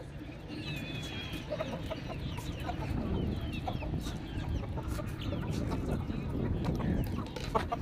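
Aseel chickens clucking, with short high calls scattered throughout and a few longer wavering calls about a second in, over a steady low background noise.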